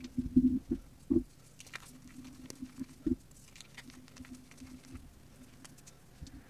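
Fingers crushing and crumbling reformed gym chalk, with crisp crunches and small crackles of chalk crumbs and powder. The crunches are loudest in the first second and again about three seconds in, with softer crumbling between.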